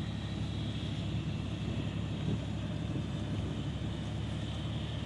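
Off-road truck engine running steadily under load as the stuck truck is winched out of a deep mud hole, with a steady high whine above it.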